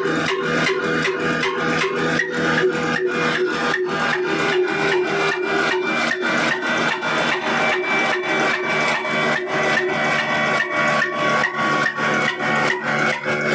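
Old single-cylinder black diesel engine running steadily at work, driving a flour mill by flat belt: an even beat of about three to four strokes a second over a steady hum.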